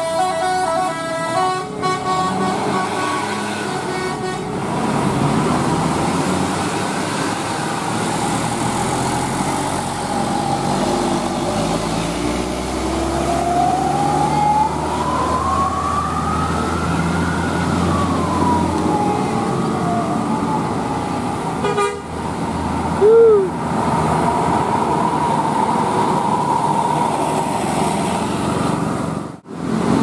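Tour-bus telolet multi-tone horns over bus engines and passing traffic: a stepped horn melody in the first few seconds, a siren-like horn that rises and falls in pitch around the middle, and a short loud horn blip about three-quarters of the way through.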